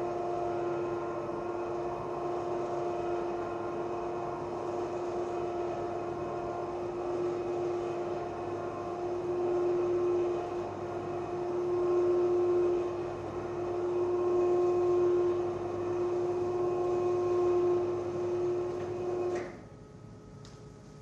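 Electric motor of a motorized projection screen running as the screen rolls up: a steady hum that stops abruptly with a click near the end.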